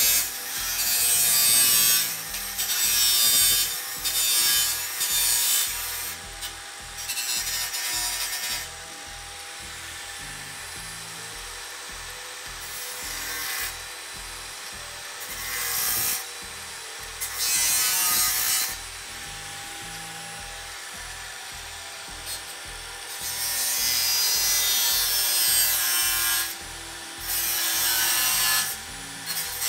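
Cordless angle grinder with a cut-off wheel cutting through a sheet-steel patch panel in repeated passes: a harsh hissing cut for a second or three at a time, with the motor's steady whine in between while the wheel spins free.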